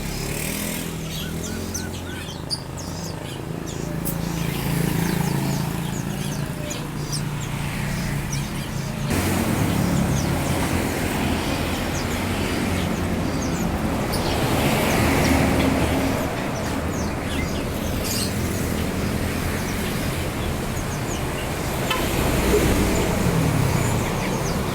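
Caged birds chirping with short, high calls over a steady low rumble of road traffic.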